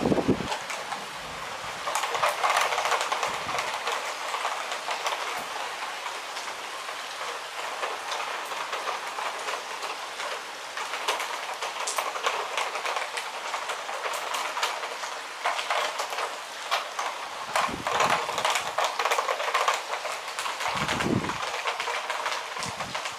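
Heavy rain falling and pattering on nearby surfaces: a steady dense crackle of drops, with a couple of brief low rumbles near the end.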